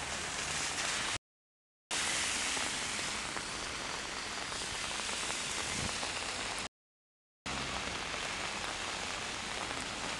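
Heavy rain shower falling on a wet street: a steady hiss, cut off twice by sudden gaps of dead silence under a second long.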